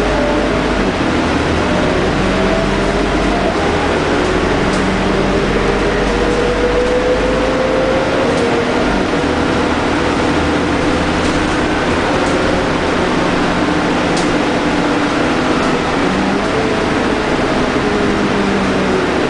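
Scania K310UD double-decker bus on the move, heard from inside the passenger saloon: the rear-mounted Scania DC9 diesel and ZF Ecomat automatic gearbox running under steady road noise. A drivetrain whine rises slowly in pitch a few seconds in, and the deep rumble eases about eight seconds in. Occasional light rattles come from the body.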